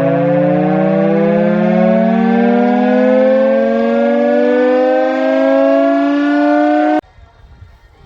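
Air raid siren winding up, one loud tone rising slowly and steadily in pitch; it cuts off abruptly about seven seconds in, leaving only faint background noise.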